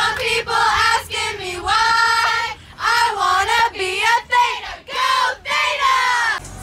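A group of young women singing together loudly, in phrases of a second or so with short breaks between them.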